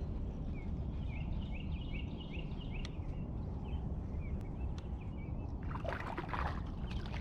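Steady low rumble of water and wind around a small fishing boat, with a run of short high chirps in the background through the middle and a louder splashy rush near the end.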